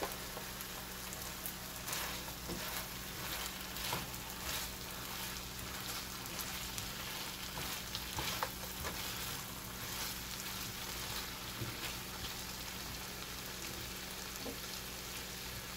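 Bite-sized lamb pieces sizzling steadily in a hot nonstick frying pan, their juices cooked down, with a silicone spatula stirring and scraping through them every few seconds.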